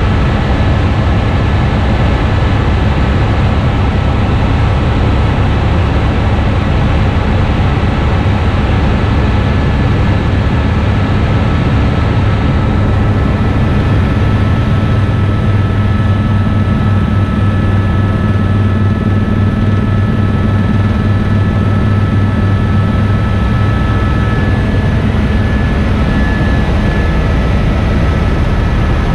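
Helicopter in flight: a loud, steady drone of engine and rotor with a rapid low flutter, and a thin steady high whine on top.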